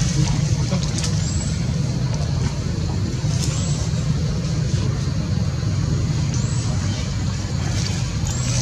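A motor vehicle's engine running steadily nearby, a low drone, with short thin high chirps every second or two over it.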